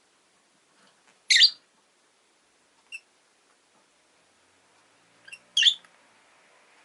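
Rosy-faced lovebird giving short, sharp chirps: a loud one about a second in, a faint brief one a little later, and two more near the end, the second loud.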